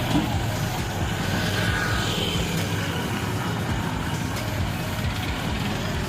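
Steady street traffic din, with motor engines running close by.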